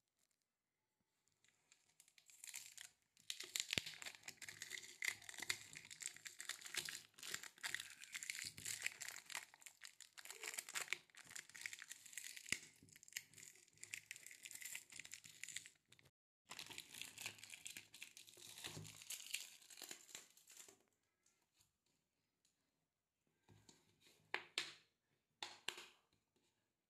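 Clear plastic film being peeled and torn off the screw lid of a plastic pickle jar to unseal it, crinkling in long stretches. There is a short break a little past the middle, and a few brief rustles near the end.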